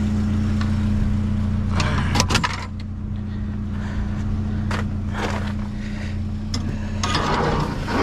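A vehicle engine idling steadily, with a few sharp knocks about two and five seconds in and a cluster of rattles near the end.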